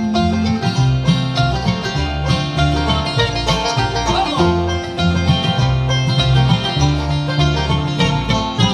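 Bluegrass band playing the instrumental ending of a song: banjo, mandolin and acoustic guitar over steady upright bass notes, with no singing. A last chord is struck right at the end.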